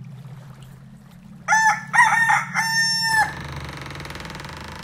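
A rooster crowing once, about a second and a half in: a few short notes and then a long held final note that drops at the end, over a steady low music drone.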